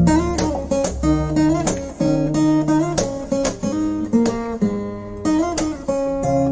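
Background instrumental music: a guitar playing a melody of quick plucked notes, some of them sliding in pitch.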